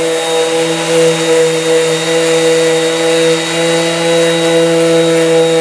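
DeWalt random orbital sander running steadily against the fibreglass gel coat of a boat's bottom, a loud, even whine with a hiss of abrasive on the hull. The gel coat is being sanded thinner so that osmosis blisters can be opened up.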